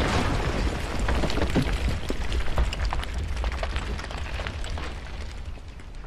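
Low rumbling roar with many scattered crackles and pops, gradually fading away.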